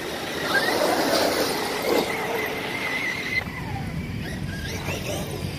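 Electric RC monster truck's motor and drivetrain whining as it drives across mud: a steady high whine that stops about three and a half seconds in, then short rising whines as the throttle is opened again.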